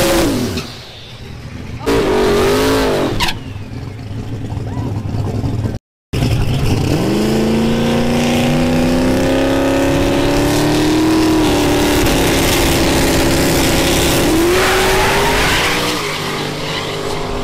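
Drag-racing car engines revving in quick blips, then, after a brief cutout, a car under hard acceleration, its engine note climbing steadily in pitch for several seconds.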